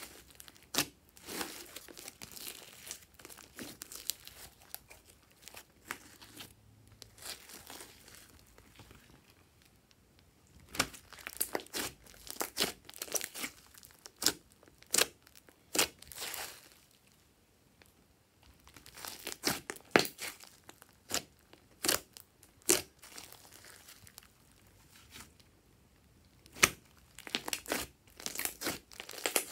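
Hands squeezing, stretching and pressing a large mass of glossy slime mixed with foam beads, making irregular sticky crackles and pops in quick clusters, with a brief lull a little past the middle.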